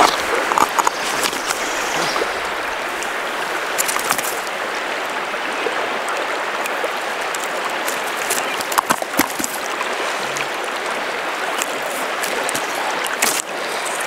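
Steady rush of river current over a gravelly bed, with a few sharp clicks and knocks scattered through it.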